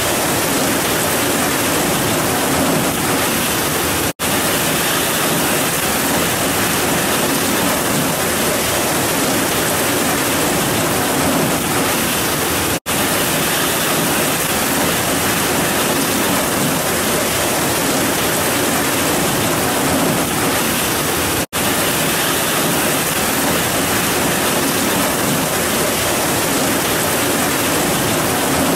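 Heavy rain pouring steadily in a dense, even hiss. The sound cuts out for an instant three times, evenly spaced.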